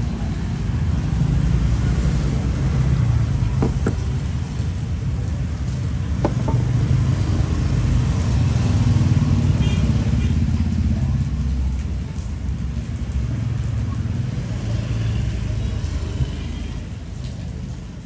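Motor vehicle traffic rumbling, rising and falling, loudest about halfway through, with two short clicks a few seconds apart early on.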